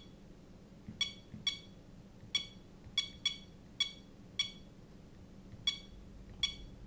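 Short electronic button beeps from a ToolkitRC handheld power supply, about nine at an uneven pace, one for each press as its output voltage setting is stepped.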